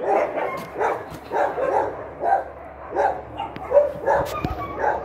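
Small dogs yapping in quick succession, about two or three short barks a second, with a couple of sharp clicks among them.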